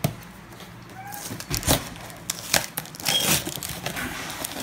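Cardboard packaging being handled by hand: rustling and scraping of cardboard flaps against an inner box, with several short sharp knocks from about one and a half seconds in.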